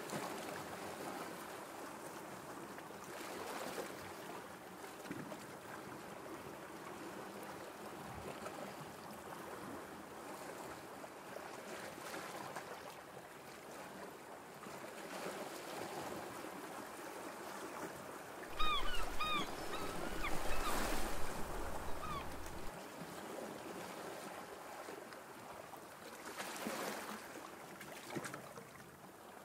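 Steady, soft hiss of harbour water lapping, with wind. Around the middle, a few short high chirps sound over a low rumble that lasts a few seconds, and there are brief louder swells twice.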